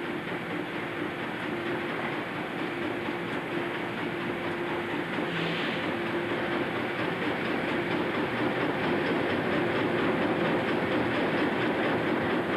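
Industrial machinery running in a works building: a steady, dense mechanical din with a constant hum, growing slightly louder toward the end.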